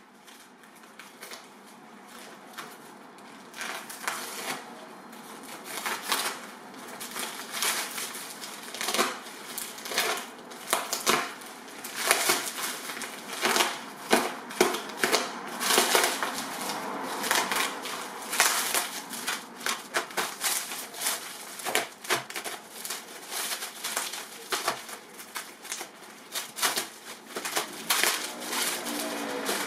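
A plastic mailer bag and the bubble wrap inside it being cut and pulled open by hand, the plastic crinkling and crackling irregularly. The sound grows louder over the first few seconds.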